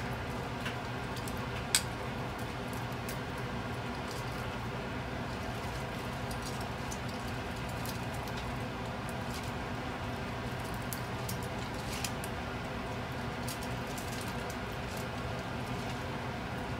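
Soaked glass noodles being lifted and pulled apart by hand and tongs in a pan of water: soft wet squishing and dripping with scattered light clicks, over a steady background hum. One sharp click about two seconds in.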